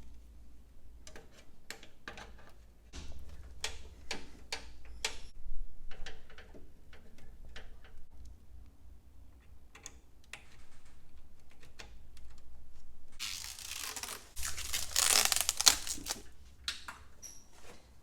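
Scattered clicks and knocks of PC parts and cables being handled and fitted into a desktop case, with a louder rustling noise lasting about three seconds near the end.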